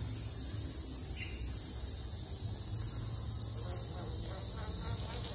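A steady high-pitched buzz holds unchanged throughout over a low rumble, with faint voices near the end.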